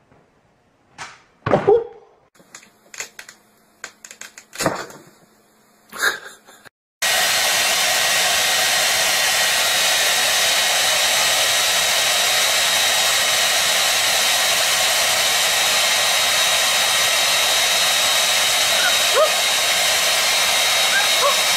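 A few scattered short sounds, then a handheld hair dryer switches in suddenly about seven seconds in and blows steadily: a loud, even rush of air with a faint high whine.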